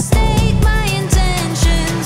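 Pop song with a sung vocal melody over a steady beat.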